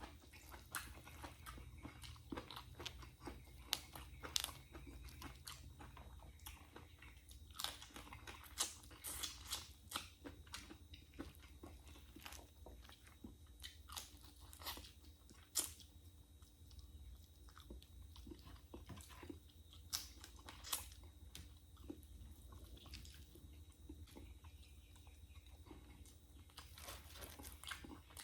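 A person chewing and biting crunchy food, with irregular sharp crunches every second or so over soft chewing.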